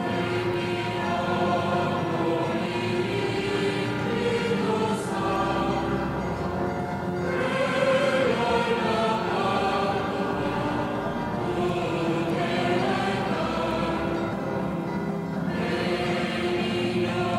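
A group of voices singing a slow devotional chant together, with long held notes.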